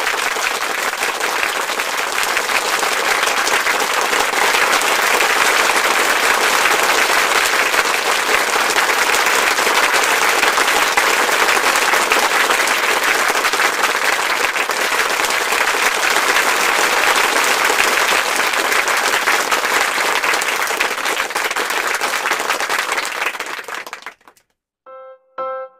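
Steady applause, a dense unbroken clapping that cuts off abruptly near the end. A few piano notes start just after it stops.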